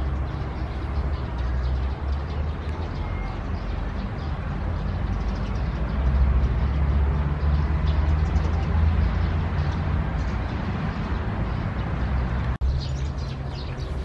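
Outdoor background: a steady low rumble with small birds chirping faintly. The sound drops out for an instant near the end.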